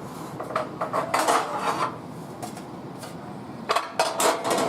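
Baking dishes clattering and knocking against each other in two bursts, about a second in and again near the end, as a dish is taken out from among others.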